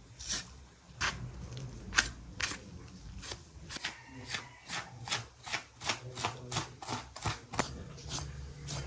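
Knife slicing fat and membrane away from a large cut of raw meat: a run of short, crisp cutting strokes, about two or three a second.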